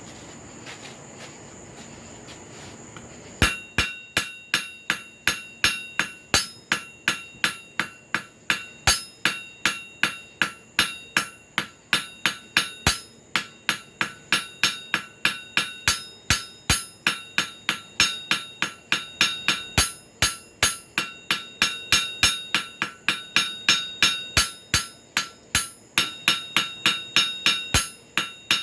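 Hammer blows on an anvil, forging a small carbon-steel cut nail into a hook. The blows start about three and a half seconds in and run in a steady rhythm of about two to three a second, each leaving a bright metallic ring.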